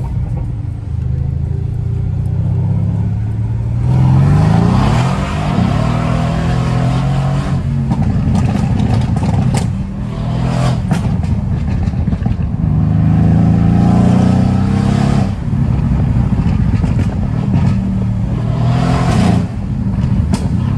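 Mercedes-AMG C63 S twin-turbo V8, fitted with an aftermarket downpipe, accelerating hard twice with the engine note rising through the revs, heard from inside the cabin. Between pulls, sharp exhaust pops and crackles sound on lift-off.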